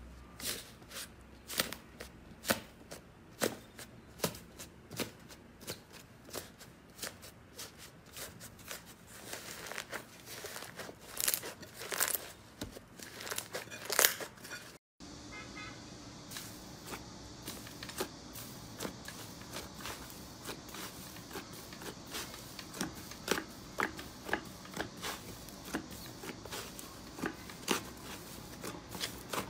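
Slime being pressed, squeezed and poked by hand, giving many sharp crackles and pops, the loudest just before halfway. The sound cuts out for a moment about halfway, then another slime gives a denser run of softer crackles.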